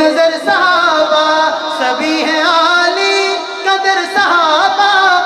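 A man singing a naat, drawing out long wavering notes in a slow melismatic line.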